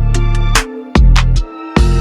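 Background music: a hip-hop style beat with heavy bass notes and sharp drum hits.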